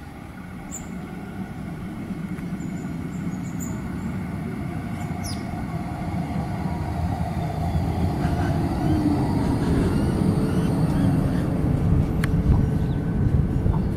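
Electric low-floor tram approaching and running into the platform, its rumble of wheels on rails and running gear growing steadily louder as it comes alongside.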